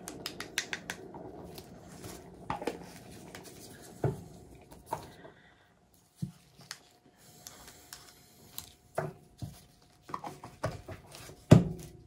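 A paint-covered canvas spinning on a turntable: a low rumble from the turntable at first, then scattered light clicks and knocks as the spin slows and is brought to a stop, the loudest knock near the end.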